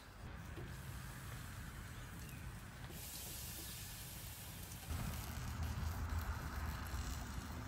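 Steady hissing sizzle of a hot grill as melted garlic herb butter is brushed onto a prime rib roast on the grate; the hiss gets louder about five seconds in.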